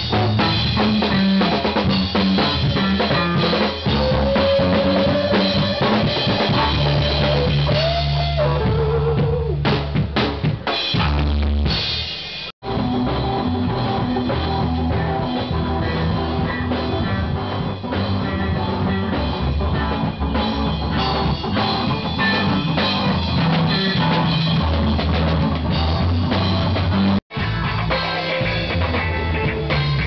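Rock music with a loud drum kit, bass and guitar. It breaks off abruptly twice, about twelve seconds in and near the end, where one clip cuts to the next.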